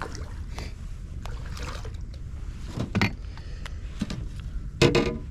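Knocks and rattles of a just-landed white bass being handled in a small boat, over a steady low rumble; the loudest knock comes shortly before the end.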